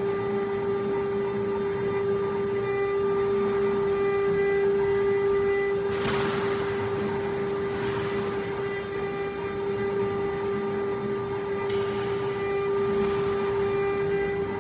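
A CNC wood router's water-cooled spindle running with a steady whine while the head moves over an MDF board. There is a short burst of hiss about six seconds in.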